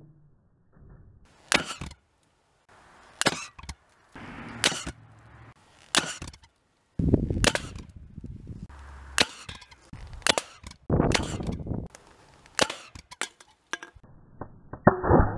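Homemade combustion paintball gun firing repeatedly: a hairspray-and-air mix ignited by a grill lighter inside a plastic bottle, each shot a sharp pop. The pops come in a string about one to two seconds apart.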